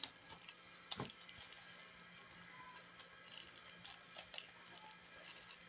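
Fingers working and pressing into dry flour in a bowl, making faint scrunching and crackling with small scattered clicks. One sharper click comes about a second in.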